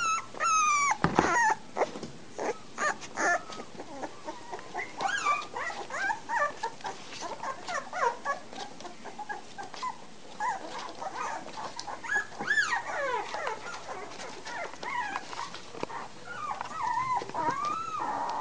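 Three-week-old American Bulldog puppies whimpering and squealing: many short, high cries that bend up and down in pitch, overlapping, with a few knocks near the start.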